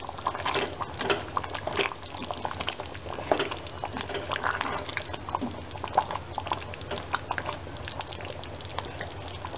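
Butter chicken curry simmering in the pan, bubbling with many small irregular pops and crackles.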